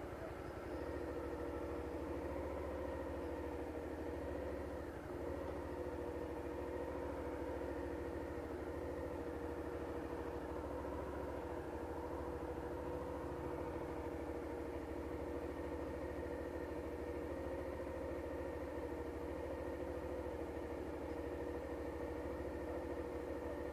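Honda Hornet 600 motorcycle's inline-four engine running steadily at low revs, with no revving up or down, as the bike is ridden slowly through a cone course.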